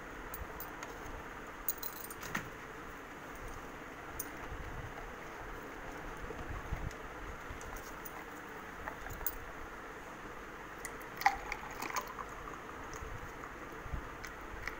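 Light clicks, clinks and knocks of kitchen things being handled: a steel mixer jar, a glass and bowls set down and picked up, with one sharper clink about eleven seconds in, over a steady low hiss.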